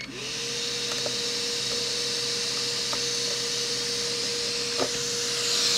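Hakko FR-810B hot air rework station switched on with a button click: its blower spins up in a fraction of a second and then runs with a steady hum and a rushing air hiss, the heater warming up. The hiss gets louder near the end as the handpiece is taken up.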